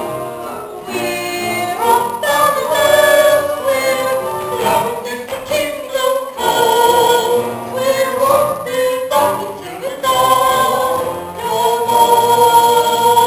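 A stage-musical cast singing an ensemble song together, the voices holding and moving between sung notes over the music.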